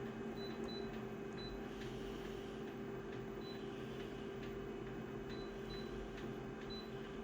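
Photocopier humming steadily, with several faint short beeps from its control panel as settings are keyed in.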